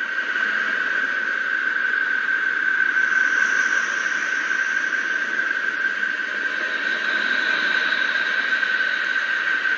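The 'sound of Neptune': electromagnetic waves from the planet's magnetic field converted into audio. A steady hiss with a steady high tone held over it, fading in over the first second and cutting off abruptly near the end.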